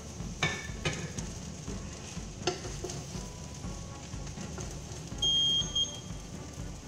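Wooden spatula stirring and scooping fried rice in a pot, with a few knocks against the pot over a faint sizzle. About five seconds in comes a short, high electronic beep, the loudest sound.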